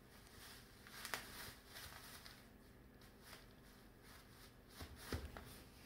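Faint crinkling and rustling of a thin plastic bag as a cat moves with its head inside it, with a soft thump about five seconds in.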